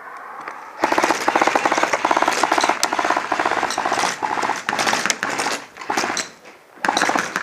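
Airsoft electric gun firing full-auto: one long burst of rapid, evenly spaced shots lasting about five seconds, then a short burst near the end.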